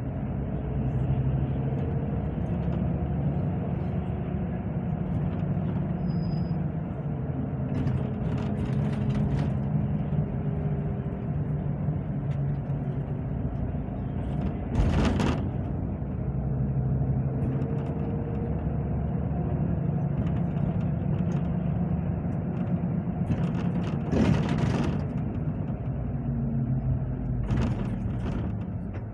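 Bus engine and road noise heard from inside the passenger cabin: a steady low drone, with a few brief clattering knocks along the way.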